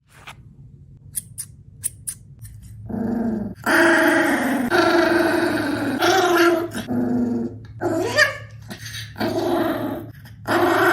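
Pomeranian growling in long, drawn-out bouts in a tantrum at having its paws trimmed. A few sharp clicks come first, then repeated growls, one rising in pitch near the middle.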